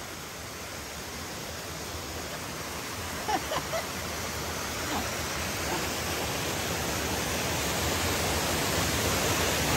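A steady rushing noise, like running water or wind, growing gradually louder throughout, with a few faint brief pitched sounds about three and a half seconds in.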